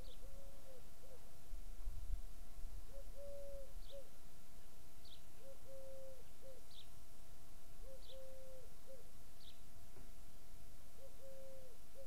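A dove cooing a repeated three-note phrase, a short coo, a long held coo and a short coo, five times, about every two and a half seconds. Short, high chirps from a small bird fall between the phrases.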